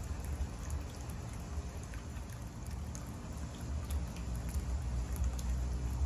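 Bird-bath fountain spouting and splashing into its basin: a steady watery trickle with scattered drips. A low rumble builds under it near the end.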